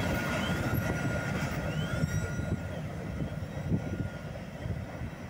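Tail end of a freight train rolling away: a steady low rumble of steel wheels on rail with scattered knocks and a few faint wheel squeals, slowly fading.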